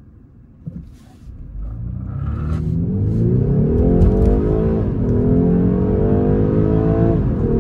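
BMW 430i's 2.0-litre turbocharged inline-four pulling away from a standstill at full throttle, heard from inside the cabin. The engine note swells and climbs steadily from about 1.5 s in, drops sharply at an upshift about 5 s in, then climbs again to a second upshift near the end.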